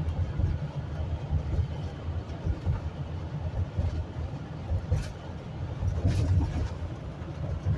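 Low, steady rumble of a vehicle's engine and tyres on the road, heard from inside the moving vehicle, with a couple of faint brief clicks about five and six seconds in.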